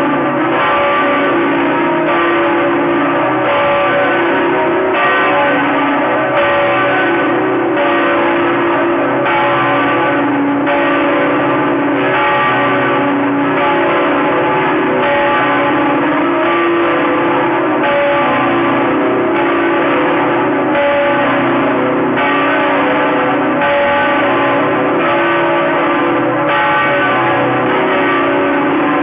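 Notre-Dame Cathedral Saigon's church bells pealing continuously. A new stroke falls about every one and a half seconds over a dense wash of overlapping, still-ringing tones.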